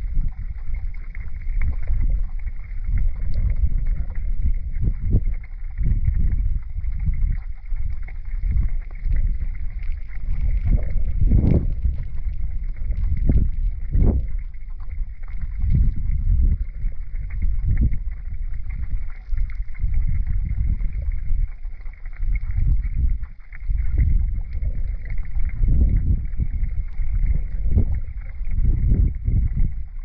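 River water flowing over a stony riverbed, heard through a submerged camera as a deep, uneven rush that swells and dips every second or so.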